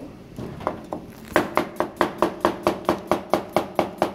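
Chef's knife chopping peeled mature pumpkin on a plastic cutting board: a few separate cuts, then from about a second in a quick, even run of knife strikes on the board, about five a second.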